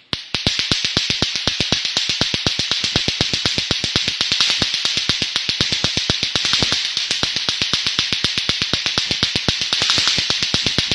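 Space sound recording of the kind presented as planet sounds: a fast, even train of clicks, about nine a second, over a steady hiss.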